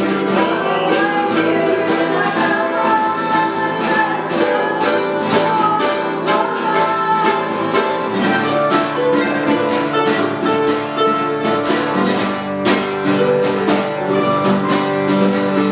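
Instrumental music of rapidly picked plucked strings, a quick run of many notes over held chord tones.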